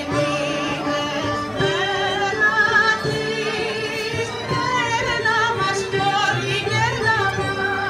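Greek folk song with a singing voice and instruments over a steady beat.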